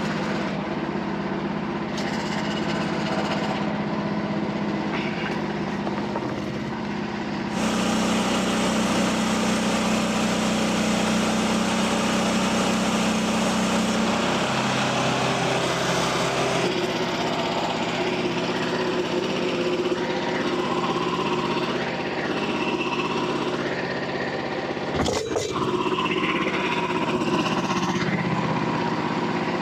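Portable band sawmill running: its engine drones steadily while the Stellite-tipped band blade cuts through a log, the sound growing fuller and brighter about a quarter of the way in. A short knock comes about three-quarters through.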